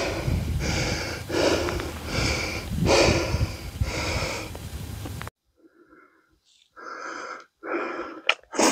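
A climber's heavy, rapid panting close to the microphone, a breath roughly every three quarters of a second over a low rumble, out of breath after hauling up a steep rope-fixed rock slab. About five seconds in it cuts off abruptly, and fainter breaths follow near the end.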